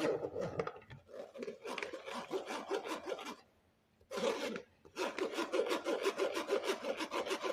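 Rapid scraping strokes, rubbing over a rough surface, in several bursts broken by short pauses, the longest about three and a half seconds in.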